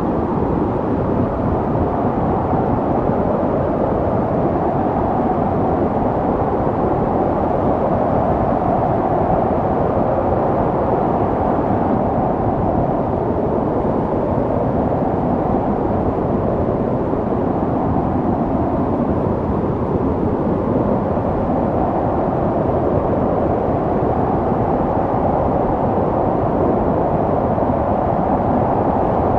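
Snowstorm wind blowing steadily, a low, even rush without gusts or breaks.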